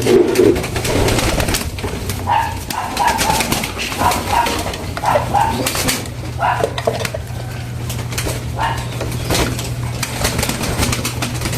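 Pigeons cooing in short repeated calls, with scattered sharp clicks and taps and a steady low hum underneath.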